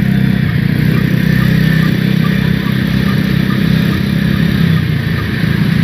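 Bus engine running with a steady low note, easing slightly about two and a half seconds in.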